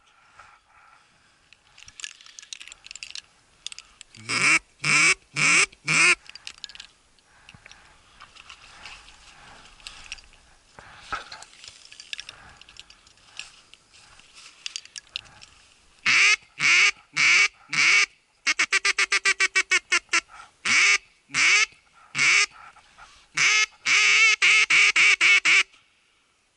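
Duck call blown in runs of hen-like quacks, very close and loud: four quacks about four seconds in, then from about sixteen seconds on several more runs, one of them a fast string of short quacks.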